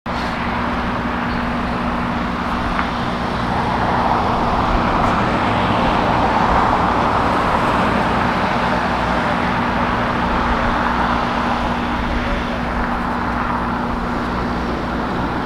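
Airbus A380 on final approach with its four jet engines and landing gear down: a continuous rushing jet noise that swells for several seconds and then eases, over a steady low hum.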